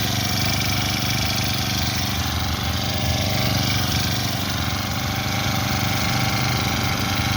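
Honda GX35 35.8 cc four-stroke engine of a backpack brush cutter running steadily at an even speed.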